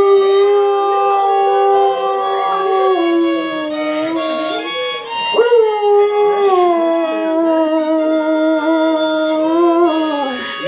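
A husky howling along to a harmonica: two long howls, each swooping up at the start and then held, over the harmonica's chords.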